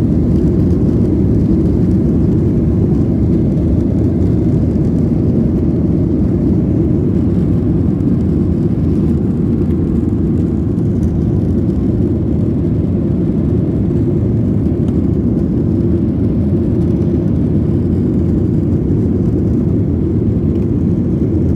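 Boeing 737-800's CFM56-7B turbofan engines at takeoff thrust, heard inside the cabin as a loud, steady deep rumble through the takeoff roll and into the initial climb.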